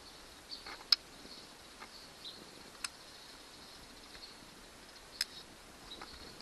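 Three sharp, isolated clicks as wires and connectors from an outboard's remote-control wiring are handled, the first the loudest. Under them runs a faint, steady high-pitched hiss.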